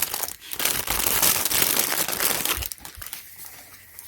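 Packaging wrapped around a sewing kit crinkling and crackling as it is opened by hand, busy for the first two and a half seconds or so, then only a few soft rustles and clicks.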